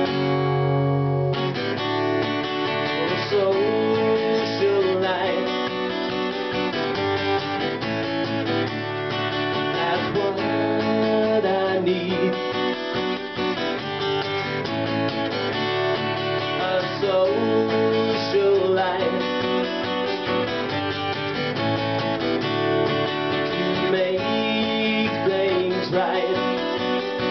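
Acoustic guitar played solo in an instrumental break between sung verses: chords strummed at a steady pace, with some sliding single notes.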